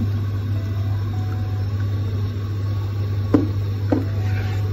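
A steady low electrical hum over a faint even hiss, with two short sharp knocks about half a second apart a little past three seconds in.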